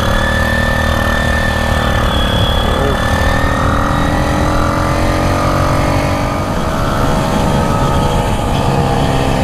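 Small 49cc Motoped motorized-bicycle engine running under way, its note climbing slowly and then holding steady.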